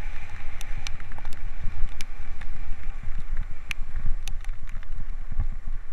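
Mountain bike riding down a wet trail: wind buffeting the microphone in a heavy, steady rumble, with tyre noise and frequent sharp clicks and rattles from the bike.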